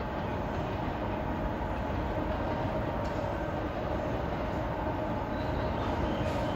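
JNR EF64 electric locomotive running light slowly through a depot yard toward the listener, a steady hum over low running noise.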